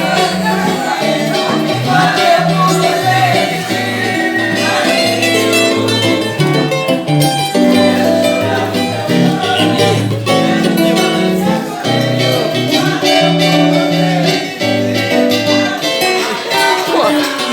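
A band playing Brazilian-style music, with plucked guitar-type strings over a moving bass line and rhythm, and no clear lead vocal.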